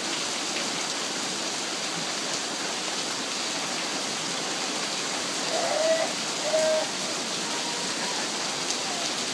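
Steady rain falling, an even hiss at a constant level.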